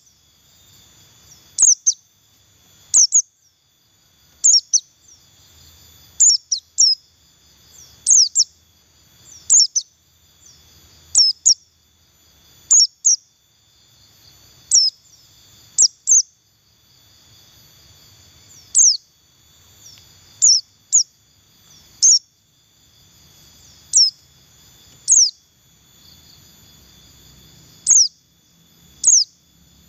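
White-eye (pleci buxtoni) giving short, sharp, downward-sliding chirps, singly or in quick pairs, about every one to two seconds. These are the simple 'ngeriwik' calls that bird-keepers play to coax other white-eyes into singing. A faint steady high hum runs underneath.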